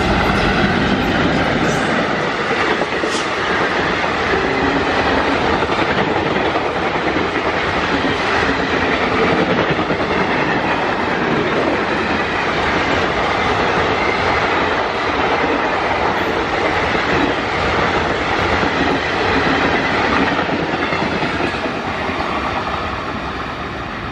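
Express train passing at speed behind two ALCo diesel locomotives. The locomotives' engines go by in the first second or two, then a long rake of passenger coaches rushes past with loud, steady wheel and rail noise that eases off near the end.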